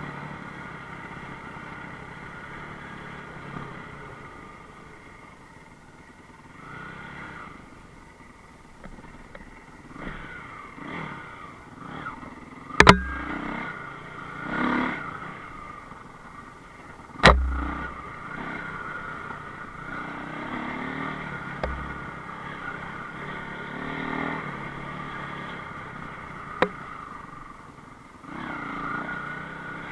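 Enduro motorcycle engine running and revving up and down, with sharp knocks about 13 and 17 seconds in and smaller ones later.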